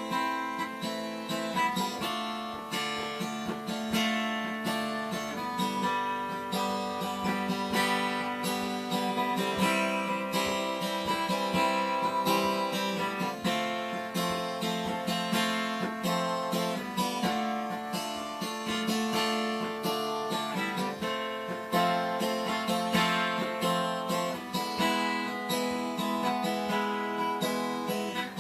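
Instrumental break of a song: acoustic guitar strumming and picking chords.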